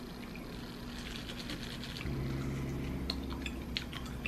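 Quiet room tone: a low steady hum that gets slightly louder about two seconds in, with a few faint light clicks in the second half.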